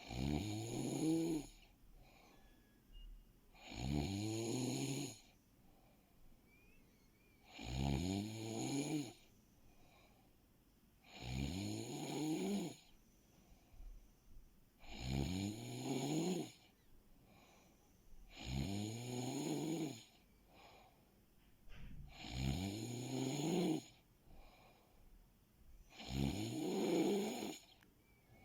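A sleeping person snoring in a steady rhythm: eight snores, each lasting about a second and a half, one roughly every four seconds, with each snore rising in pitch.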